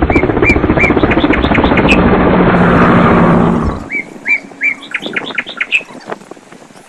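A bird repeating short chirps. Under the first half is a loud, rapidly pulsing noise that cuts off suddenly about four seconds in, after which the chirps go on over a quiet background.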